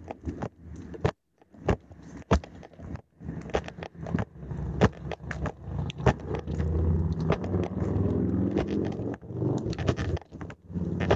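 Sharp scrapes and knocks on the recording microphone, typical of clothing rubbing on a worn police recorder as the wearer moves. A vehicle engine runs low underneath and is loudest from about five to ten seconds in.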